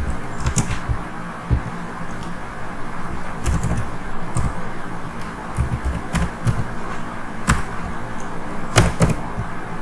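Computer keyboard keys clicking: a handful of separate keystrokes at irregular intervals, two in quick succession near the end, over a steady hiss.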